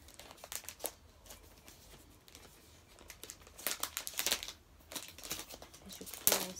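Clear plastic protective film crinkling and rustling as it is handled and peeled off, in irregular bursts, with the busiest crackling in the middle and the loudest crackle near the end.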